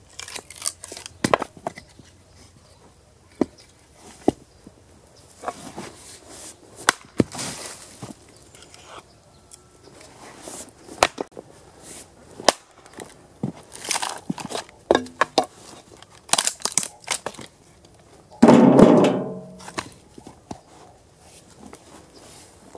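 An axe splitting firewood rounds: sharp chops and cracks, with split pieces of wood knocking together as they fall and are tossed onto the pile. About three-quarters of the way through, a loud pitched sound lasting about a second stands out above the chopping.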